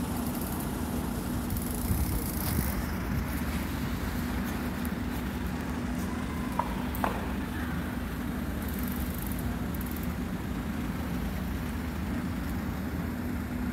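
Steady city street traffic noise, with a couple of faint clicks about two and seven seconds in.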